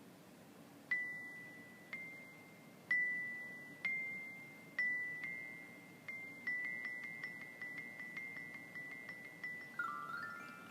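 A single high, bell-like note repeatedly struck on a metal mallet instrument. The strikes come about once a second at first, then speed up to about four a second, and a quick rising run of notes ends the passage. It works as a raindrop sound effect for a storm setting in.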